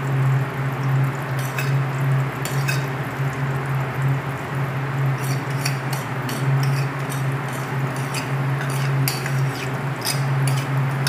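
A metal spoon clinking and scraping against a ceramic bowl as thick egg-and-flour batter is scraped out into a frying pan, in scattered short clinks over a steady low hum.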